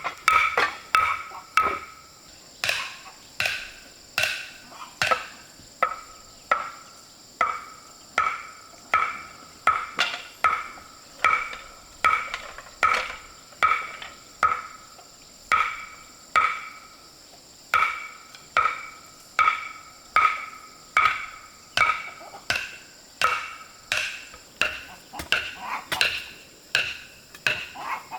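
A hand tool striking wood or metal in steady repeated blows, roughly two a second, each blow with a short ringing note.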